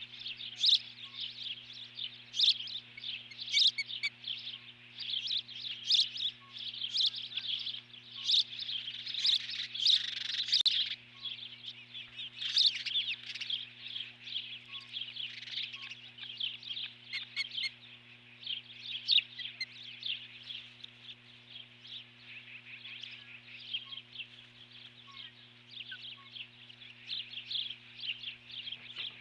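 Osprey alarm calling at the nest: a rapid run of high, sharp chirps, densest and loudest in the first half and thinning out later. A steady low hum runs underneath.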